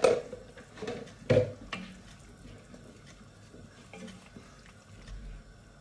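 Wooden spoon stirring a thin tomato-and-vegetable sauce in an enamelled cast-iron casserole, with a few sharp knocks in the first second and a half, then soft scraping and light ticks.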